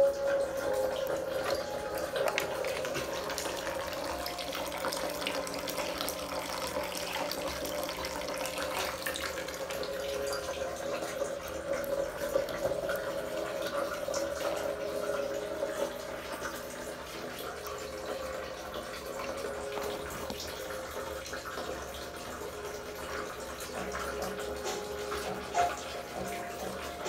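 Water running steadily from a tap into a basin, with a constant tone in the stream's sound.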